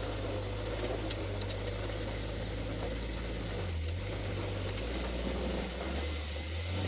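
Jeep engine running at low speed on a dirt trail, with a steady hum under tyre and wind noise; the engine note dips and shifts about four seconds in, and a few faint light ticks sound early on.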